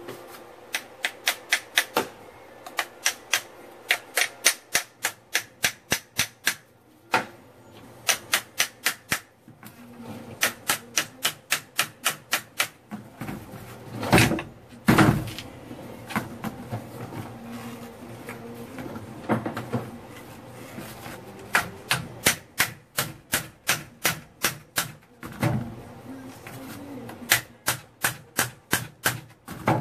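Hammer tapping on the steel CV joint of a Jeep Wrangler JK front driveshaft, metal on metal, to knock the joint off the shaft. The taps are quick and light, about four a second in runs with short pauses, and two heavier blows land about halfway through.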